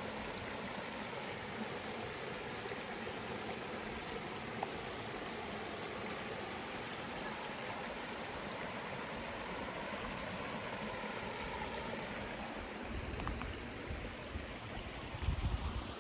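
Small rocky mountain creek babbling and rushing steadily, with a few low rumbles near the end.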